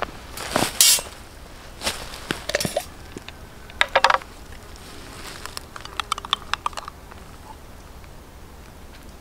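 Handling sounds of food being arranged on a wooden board, a few louder knocks and rustles, then a spoon clinking and scraping in a jar of sour cream, a quick run of small clinks.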